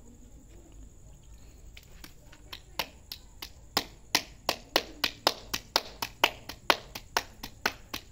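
Bare hands slapping a ball of roti dough back and forth between the palms to flatten it into a round for the tandoor. A few scattered pats come first, then from about four seconds in a steady run of sharp slaps at about four a second.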